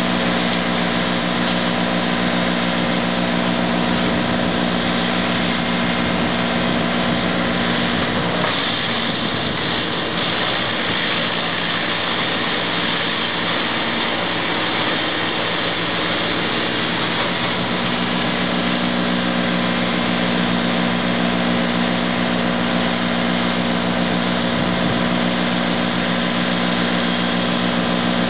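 Tractor engine running at working speed, driving a front-mounted wood chipper, a steady drone with a broad rushing noise over it. From about eight seconds in the even hum turns rougher for about ten seconds, as wood goes through the chipper, then settles back to the steady drone.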